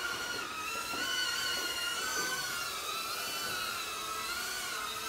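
High-pitched motor whine of small FPV racing quadcopters in flight, the pitch rising and falling as the throttle changes.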